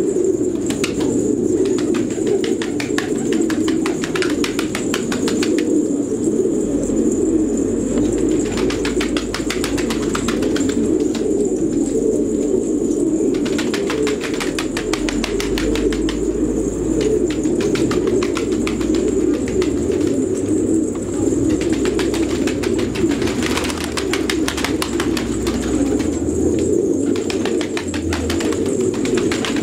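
A flock of domestic fancy pigeons cooing together in a continuous low chorus, with frequent wing flaps and flutters among the birds.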